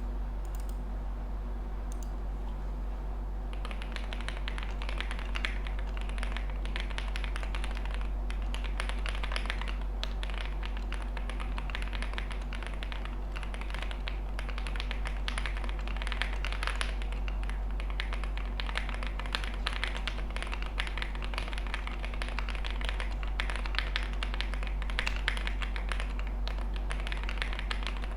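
Typing on a Meletrix Zoom65 mechanical keyboard with a polycarbonate plate, stock JWK switches, stock keycaps and full foam. A fast, steady run of keystrokes begins about three and a half seconds in, with a few short pauses, over a low steady hum.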